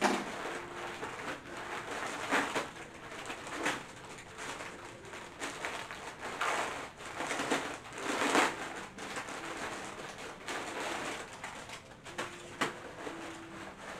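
Paper and plastic packaging rustling and crinkling in repeated bursts as a package of clothing is unwrapped, loudest about eight seconds in. Underneath, a low call of short steady notes repeats.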